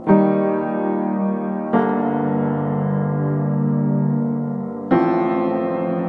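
Background music: slow piano chords, a new chord struck three times (at the start, a little under two seconds in, and near five seconds) and each left to ring.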